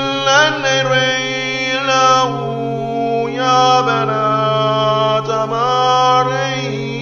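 Chanted vocal music: a voice holding long notes that bend and slide between pitches over a steady low drone.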